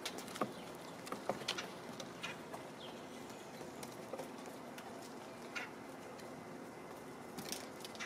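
A squirrel's claws and feet scrabbling and tapping on the wooden feeder ledge right beside the camera: scattered light clicks and taps, most of them in the first two seconds, over a faint steady background.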